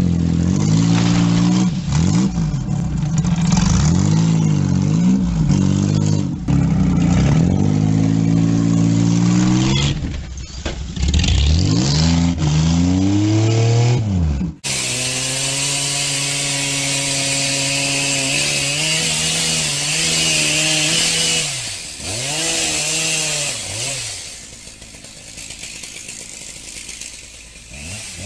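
Car engine revved hard again and again, its pitch climbing and falling with each push, as the car spins its wheels in dirt trying to drag a tree stump out on a rope. After a cut, a steadier engine drone with a few dips in pitch that grows quieter near the end.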